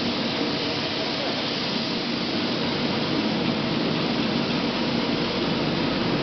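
Steady din of heavy industrial machinery in an aluminium melting and rod casting-and-rolling plant: an even rushing noise with a low hum under it, unchanging throughout.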